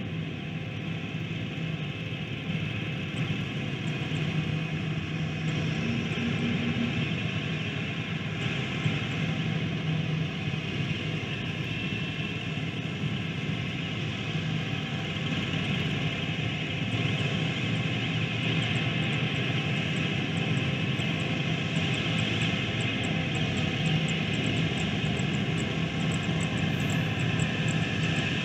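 Steady engine drone with a low hum, slowly growing louder.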